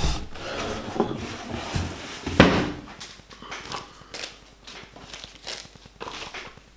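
Objects being handled and set down on a wooden table: several knocks, the loudest about two and a half seconds in, followed by lighter clicks and soft rustling of packaging.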